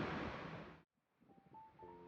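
A steady rushing background noise fades out, followed by a moment of dead silence. About a second in, background music begins with held, sustained notes.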